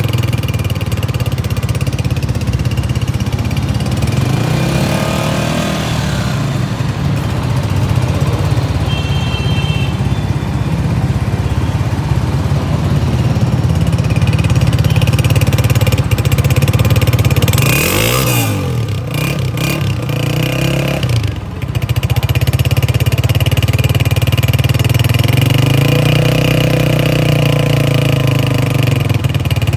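Brand-new Honda CG125's single-cylinder four-stroke engine running at idle, heard close to the exhaust muffler. The throttle is opened briefly three times, about five seconds in, past halfway and near the end, and the note rises each time and settles back.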